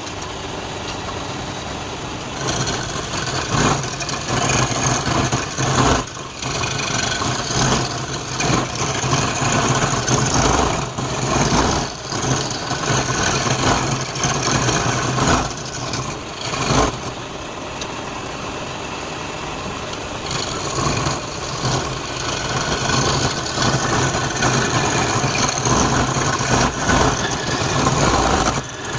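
Wood lathe running with a steady motor hum while a turning tool cuts the spinning wood, the scraping cutting noise swelling and easing as the tool is worked. The cutting gets louder about two seconds in.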